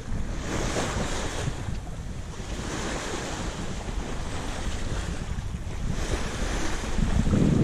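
Wind buffeting the microphone over the rush of water along a sailboat's hull as it moves through choppy sea, the hiss of the water swelling and fading every second or two.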